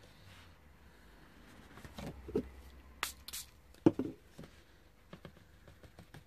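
Handling sounds of paper and tissue on a tabletop: a couple of short, crisp rustles about three seconds in, then a sharp knock on the table, with a few faint taps after.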